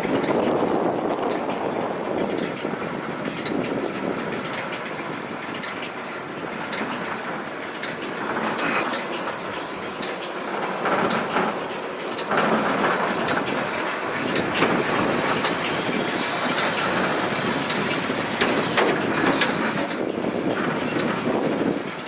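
Case IH 8575 large square baler running, a steady mechanical clatter and rattle that grows a little louder about halfway through.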